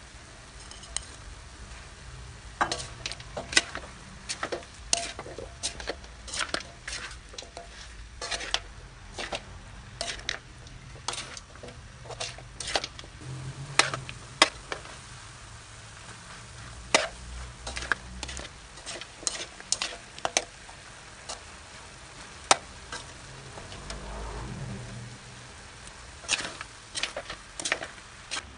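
Metal spatula scraping and knocking against a pan while stir-frying chunks of chicken and pork, in irregular sharp clacks, with a faint sizzle of the meat underneath.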